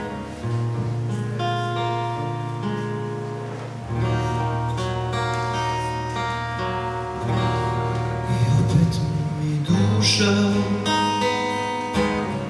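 Jumbo cutaway acoustic guitar playing an instrumental introduction, strummed chords that change about every three seconds.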